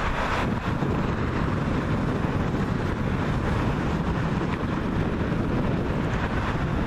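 Steady rumble of a Cessna Citation CJ3's twin turbofan engines on landing approach, mixed with wind buffeting the microphone.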